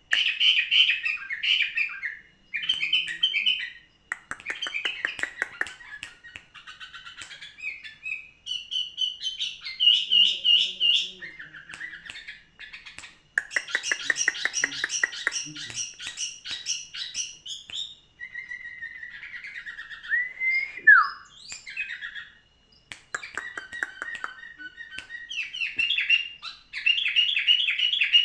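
A songbird singing a long, varied song: fast strings of repeated chirps, trills and rattling notes, with a few short pauses and a downward-sweeping whistle a little over twenty seconds in.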